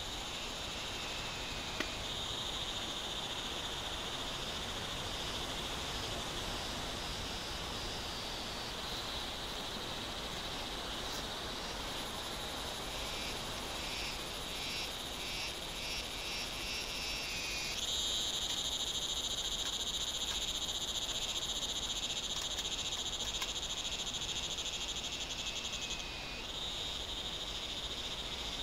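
Steady evening chorus of frogs and insects, a high continuous trilling. A pulsing call joins in for several seconds midway, then a louder trill starts suddenly about two-thirds of the way through and cuts off near the end.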